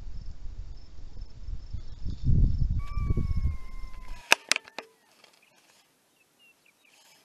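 Gusty low rumble of wind and movement on a body-worn camera's microphone, with insects chirping faintly and regularly. About three seconds in the sound changes abruptly to a single long, slightly falling call, then a few sharp clicks.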